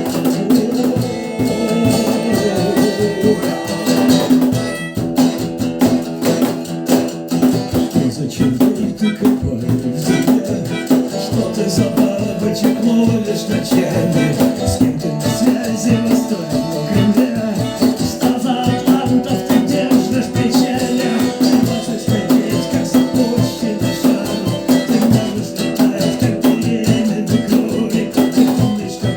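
Instrumental passage of a small live rock band: strummed guitars keeping a fast, even rhythm, with light percussion.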